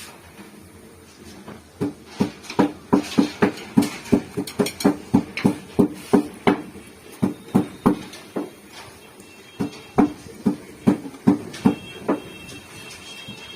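Rapid, irregular knocking of a utensil against a metal cooking pot or pan, about two to three strikes a second, starting about two seconds in.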